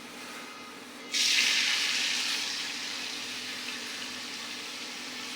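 Chopped onions hitting hot oil in a karahi: a sudden loud sizzle about a second in, easing into a steady frying hiss.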